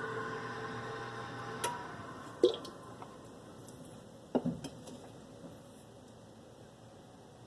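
Whirlpool convection oven fan running with a steady hum, then winding down in pitch and dying away about two to three seconds in. A few sharp clicks follow, the loudest about two and a half seconds in.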